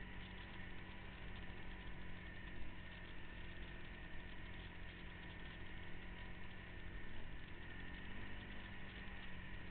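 Off-road vehicle engine running steadily at low revs.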